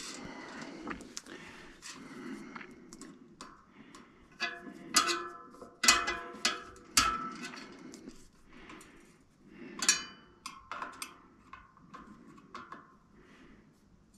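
Metal tools and parts clinking and knocking against a bicycle wheel's hub, cassette and steel disc rotor: irregular short clicks, a few of which ring on briefly.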